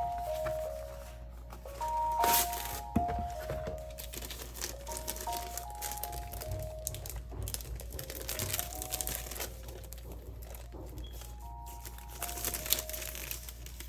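Packaging crinkling and rustling as an album is unboxed by hand, with a louder rustle about two seconds in, over soft background music with a simple melody.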